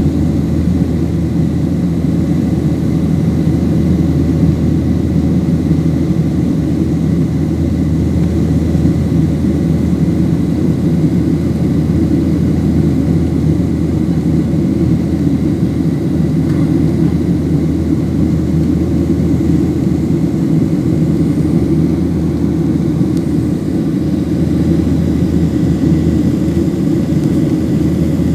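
Airliner engines and airflow heard from inside the passenger cabin: a steady, loud, deep rumble with a faint thin high tone above it, unchanging throughout.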